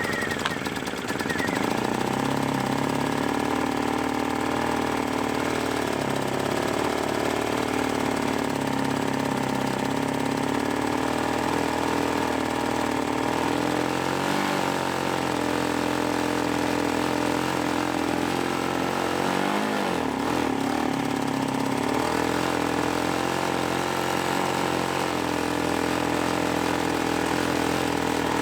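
A Lifan ESI860i-CA 40cc inverter generator engine catches on a cold start and keeps running steadily. Its speed shifts briefly about halfway through and again about two-thirds through.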